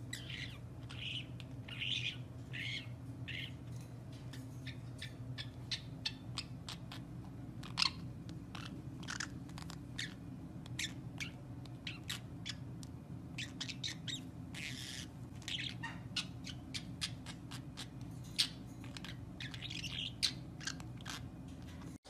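Small pet parrots, a green-cheeked conure and a budgerigar, chirping and clicking: many short high chirps scattered irregularly over a steady low hum.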